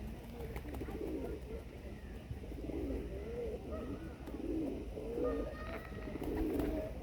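Several pigeons cooing over one another in repeated wavering calls, with a few short higher bird calls among them.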